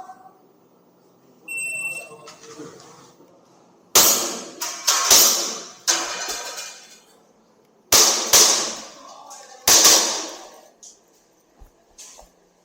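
An electronic shot timer beeps once, about a second and a half in, then a WE Glock 17 gas blowback airsoft pistol fires a series of sharp shots in quick pairs and short strings with pauses between. A few faint clicks follow near the end.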